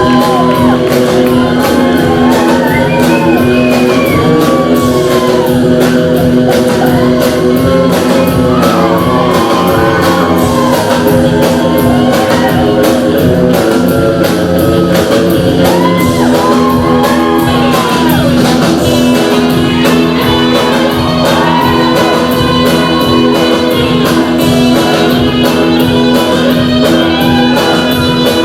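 Loud 60s-style rock and roll music with singing and shouted vocals over guitar and a steady, fast drum beat.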